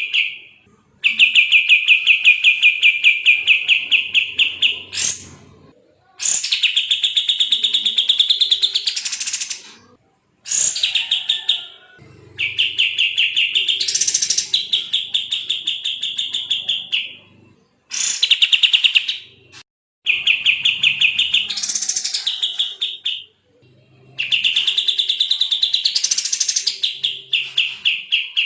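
Kapas tembak songbird singing a rapid, tightly packed trilling song in bursts of two to four seconds separated by short pauses, about seven bursts in all; several phrases bend upward in pitch near their end.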